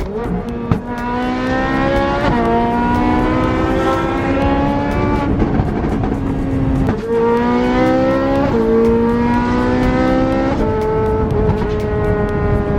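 Sports car engine accelerating hard through the gears: its pitch climbs steadily and drops sharply at each upshift, about five times.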